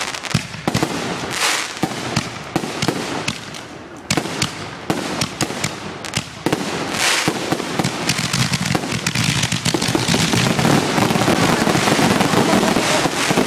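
Fireworks finale: a rapid barrage of explosive bursts and crackle, becoming denser and louder from about halfway through into a near-continuous volley.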